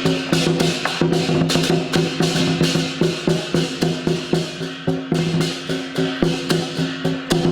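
Lion dance percussion: drum, cymbals and gong beating a fast, steady rhythm of about four strikes a second, with the metal ringing on between strikes.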